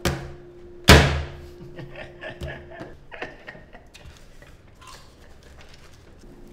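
Two sharp thumps on a tabletop about a second apart, the second the louder with a short ringing tail, followed by a couple of seconds of a man's voice over a faint steady hum.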